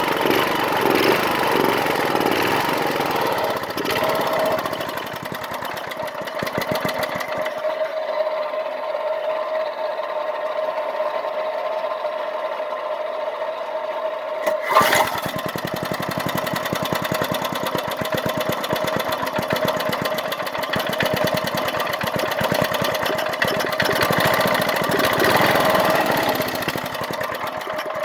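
Small Briggs & Stratton engine on a go-kart running on a cold start after years unused. It eases down a few seconds in and picks up again near the end, with one sharp click about halfway through.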